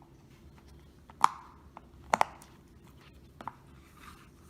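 Sharp, separate clicks from a Last Mouse Lost game being fidgeted with: one loud click about a second in, a quick double click near the middle, and a softer click later.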